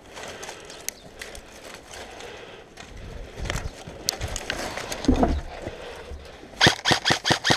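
Rustling and scattered light knocks of movement, then near the end an airsoft gun fires a rapid, evenly spaced string of sharp shots, about five a second.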